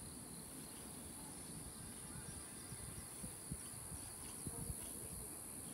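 A steady, high-pitched chorus of insects in the trees, with a few soft low thumps around the middle.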